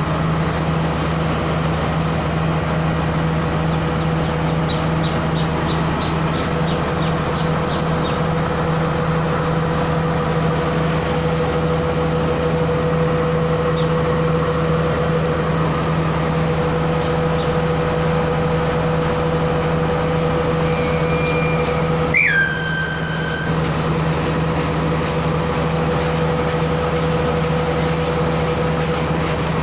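S12 diesel power set's engine running steadily at standstill, a constant deep hum with a steady whine above it. About two-thirds of the way through, a brief high tone slides down in pitch.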